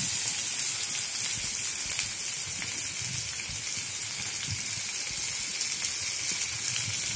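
Sliced ivy gourd sizzling in hot oil in a nonstick frying pan: a steady hiss with fine crackles, a little louder just as the slices go in.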